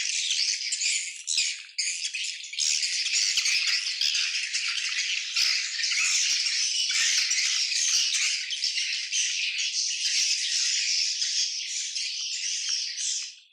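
A swiftlet colony twittering: a dense, continuous mass of high chirps from many birds, with scattered short clicks mixed in. It drops away sharply just before the end.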